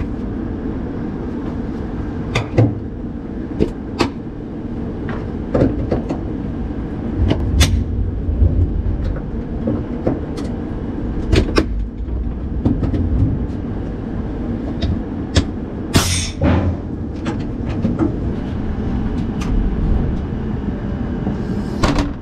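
Clicks and clunks of a lorry's air-line and electrical couplings being handled between cab and trailer, over the steady low rumble of the lorry's diesel engine idling. A short sharp hiss of air comes about sixteen seconds in, typical of an air line being uncoupled.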